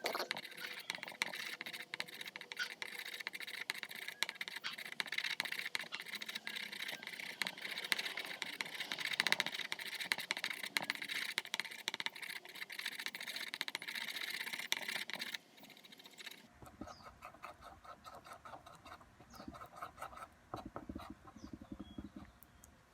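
A mixing stick stirring and scraping two-part epoxy on a hard surface: a rapid, continuous stream of small scratching ticks. About two-thirds of the way through it drops abruptly to quieter, sparser scraping.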